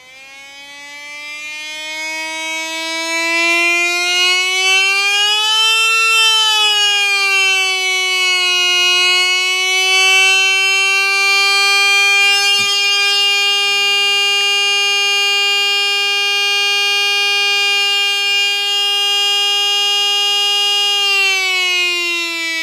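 Homemade astable-multivibrator beeper (two BC547 transistors driving a BD139 Darlington) sounding a buzzy tone of around 300 Hz through an 8-ohm loudspeaker. It grows from faint to loud and rises in pitch as the supply is turned up from about 1 V to 12 V. The tone then holds steady and sags in pitch just before it cuts off near the end.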